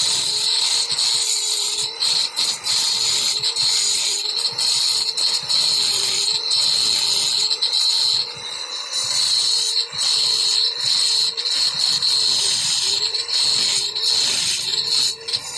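Electric angle grinder cutting a groove into a concrete hollow-block wall for electrical wiring: a loud, steady, high-pitched cutting noise whose pitch wavers and that dips briefly every few seconds.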